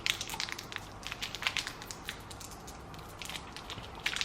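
Crinkly plastic candy wrapper being handled and torn open: an irregular run of small crackles, busiest at the start and again about three seconds in.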